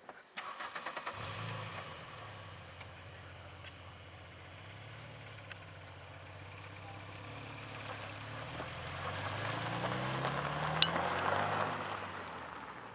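A vehicle engine starts with a short stutter of cranking, then runs with a steady low drone. About nine seconds in it rises in pitch and grows louder, then fades away near the end, with one sharp click at its loudest point.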